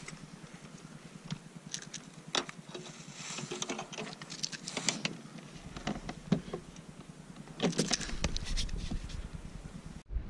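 Scattered clicks, taps and light rattles of fishing tackle and the plastic kayak being handled while a freshly caught pickerel is held on the line. A low rumble comes in about halfway through.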